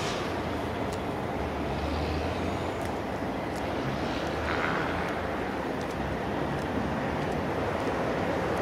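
Freight train rolling by: a steady rumble and rushing noise with a few faint clicks.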